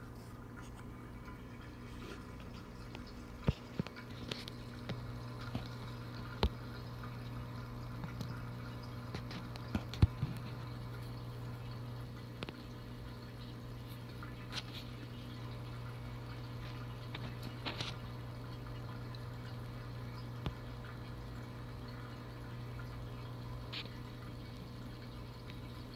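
Reef aquarium running: a steady low hum with water trickling and bubbling, and scattered sharp clicks and pops, the loudest a few seconds in and about ten seconds in.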